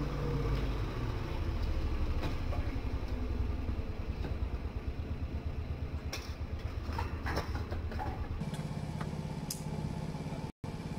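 Small 50cc GY6-type four-stroke scooter engine ticking over at idle after a ride, its CDI restriction wire cut. A low, uneven rumble turns into a steadier hum about eight seconds in, with a few scattered sharp knocks.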